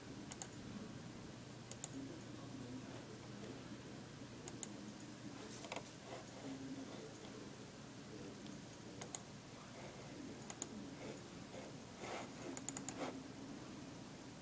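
Sparse clicks from computer controls: single sharp clicks a second or more apart, then a quick run of several about twelve seconds in, over a faint steady hum.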